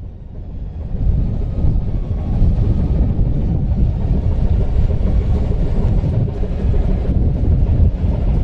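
Steady low rumbling noise aboard a ship, growing louder about a second in and then holding.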